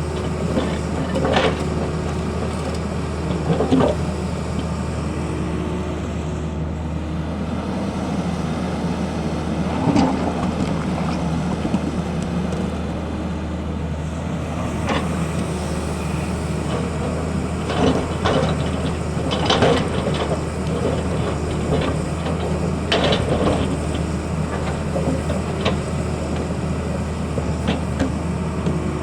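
Tata Hitachi excavator's diesel engine running steadily, with occasional clanks and knocks from the machine at work.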